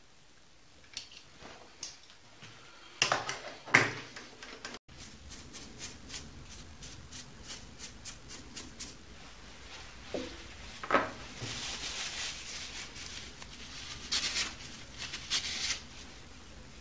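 Metal swarf being swept off a milling vise: scattered clicks and rustling scrapes of chips, with louder bursts of sweeping about three seconds in, about eleven seconds in, and again near the end.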